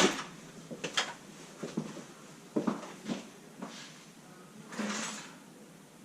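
Short light knocks and clinks of strapping hardware being handled and fitted, scattered a second or so apart, with a brief scrape about five seconds in.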